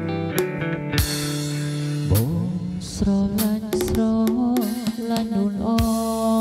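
Music with drums and guitar, a drum strike falling about every second, and a wavering melodic line coming in about halfway through.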